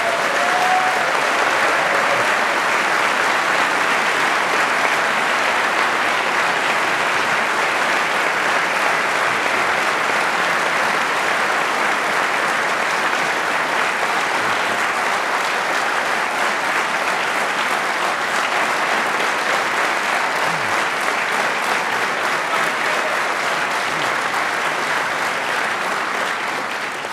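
Large seated audience applauding, a steady sustained clapping that dies away near the end.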